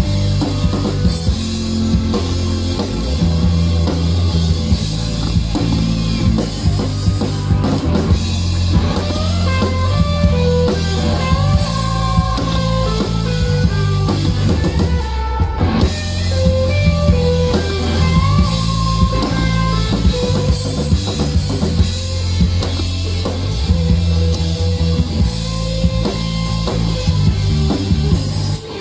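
Live rock band playing an instrumental passage: drum kit, bass guitar and electric guitar, with a lead melody line coming in about eight seconds in. The band breaks off for a moment about fifteen seconds in, then carries on.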